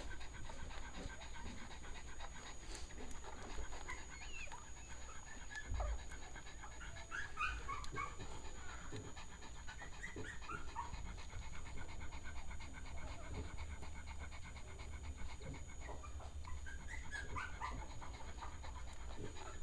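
Newborn Cavalier King Charles Spaniel puppy giving faint, short high squeaks in a few scattered clusters, over soft handling rustle from being held in a hand.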